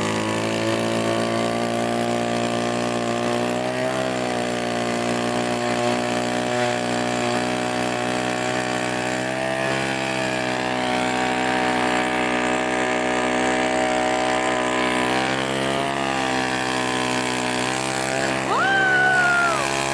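Powered ice auger drilling a hole through lake ice, its motor running steadily under load, the pitch dipping slightly now and then as the bit bites. A voice calls out briefly near the end.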